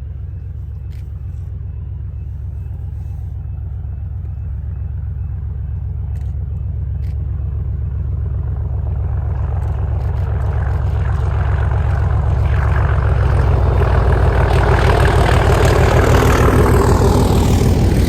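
Diesel train approaching on the line, its engine a steady low throb that grows steadily louder, with wheel and rail noise building from about halfway. It is loudest shortly before the end, as the train comes close.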